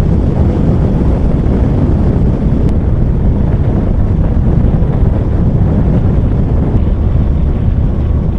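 Strong wind blasting over the microphone of a motorcycle riding through a rain and wind storm: a steady, loud, low rush that covers any engine sound.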